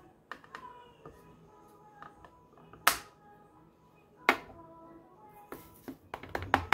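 Plastic coffee scoop scraping ground coffee and clicking against a glass jar and a plastic reusable K-Cup filter, with two sharp knocks about three and four seconds in and a quick run of clicks near the end. Faint background music underneath.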